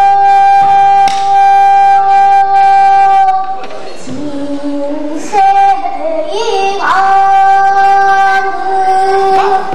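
A girl singing pansori in a long, held high note, dropping to a lower note about four seconds in and returning to the high held note about seven seconds in. A few sharp strikes on the buk barrel drum accompany her.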